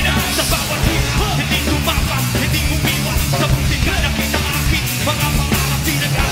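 Live rock band playing loud and steady: drums with crashing cymbals, electric guitars and bass, with vocals over the top.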